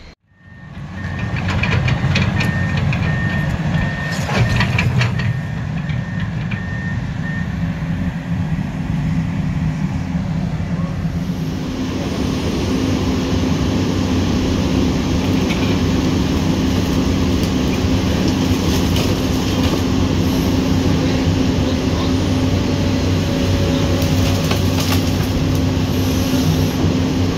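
Komatsu PC200 hydraulic excavator's diesel engine running under load, with metal clanks in the first few seconds and again near the end. About eleven seconds in the engine note rises and then holds steady.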